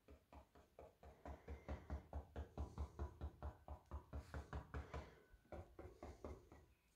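A paintbrush dabbing quick short strokes onto a stretched canvas, about four or five a second, each a soft tap that sets the canvas resonating. The taps grow stronger in the middle and thin out near the end.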